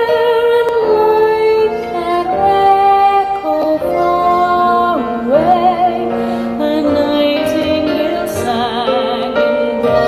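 A woman singing a vintage-style ballad with instrumental accompaniment, holding some notes with vibrato.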